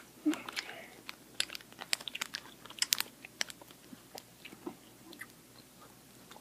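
Close-up mouth noises of someone chewing a sour chewy candy: irregular wet clicks and smacks, thickest in the first few seconds and sparser toward the end.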